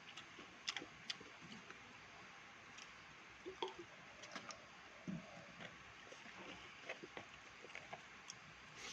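Someone eating: scattered small clicks and soft wet chewing sounds over a faint steady hiss.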